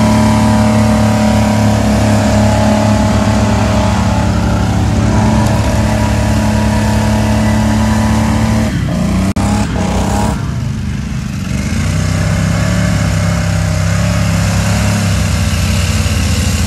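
V-twin golf cart engines running hard while the carts drive through loose sand, a steady engine note with a short break about nine seconds in, after which the engine runs on steadily again.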